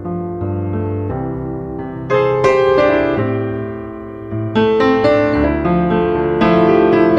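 Piano music: slow sustained notes and chords, with louder chords coming in about two seconds in and again a couple of seconds later.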